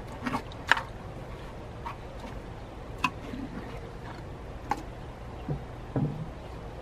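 A handful of sharp light clicks and knocks, a second or two apart, from the parts of a stone pineapple fountain being handled as its pineapple top is worked loose.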